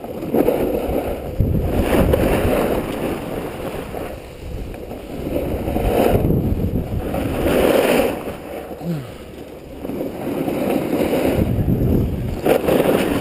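Snowboard edges scraping over snow in long swells as the board carves from turn to turn, with wind buffeting the microphone.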